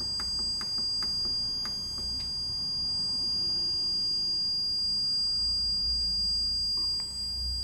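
Buttons on a Zeta Simplicity fire alarm panel's keypad clicking several times in the first two seconds and once more near the end, over a steady high-pitched electronic tone.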